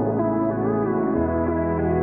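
Instrumental background music: a melody over held bass notes, the bass moving to a new note about a second in.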